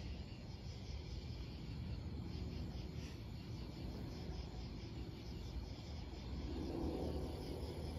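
Night insects chirping in a steady pulsing rhythm, over a continuous low rumble that swells briefly near the end.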